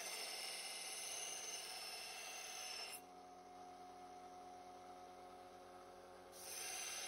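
Scheppach narrow-belt bench sander grinding the edge of a steel cleaver blade: a steady hiss of abrasive belt on metal. About three seconds in the blade comes off the belt and only the running motor's steady hum is left, until the grinding starts again near the end.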